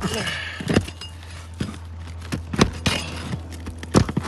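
Brittle old three-tab asphalt shingles being pried up off the roof deck and their nails worked loose: scraping and cracking, with several sharp knocks. The shingles crack and tear as they come up.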